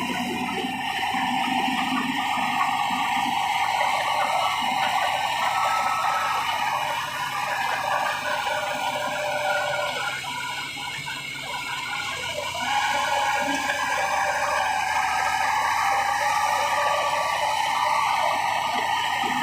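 Komatsu D70LE crawler bulldozer working, a steady mechanical clatter and whine from its machinery, easing off briefly about ten seconds in before picking up again.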